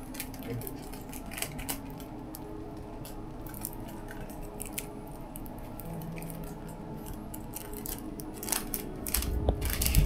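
Faint crinkling and crackling of a paper tattoo stencil being pressed onto the arm and peeled back, a scatter of small sharp clicks. A few louder bumps come near the end.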